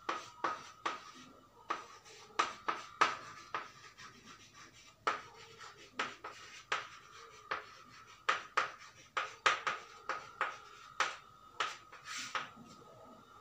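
Chalk writing on a blackboard: irregular runs of sharp taps and short strokes, several a second, over a faint steady whine.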